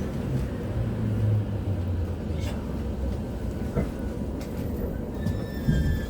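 E231-series commuter train rumbling along the track, heard from on board, with a few short knocks from the running gear. Near the end a thin high whine sets in and falls slightly in pitch.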